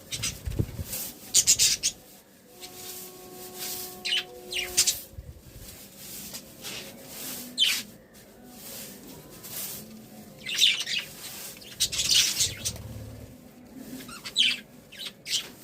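Pet budgerigars chirping and chattering in quick irregular bursts of high, scratchy calls, with a few louder clusters.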